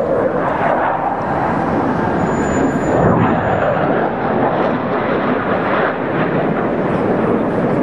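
Blue Angels Boeing F/A-18 Hornet jets flying overhead in formation: a steady, loud jet-engine roar.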